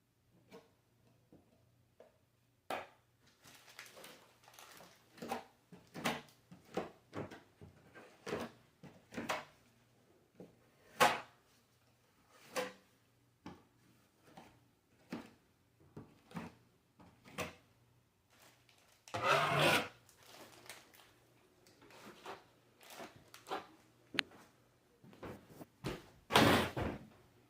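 Irregular taps and knocks from drywall repair work, with two longer scraping rubs, one a little past the middle and one near the end.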